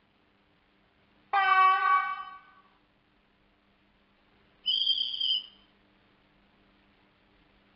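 Sound decoder in a Roco H0 model of an ÖBB class 1144 electric locomotive playing a horn blast through its small speaker, about a second long and fading out, followed about three seconds later by a shorter, higher-pitched whistle tone. A faint steady hum runs underneath.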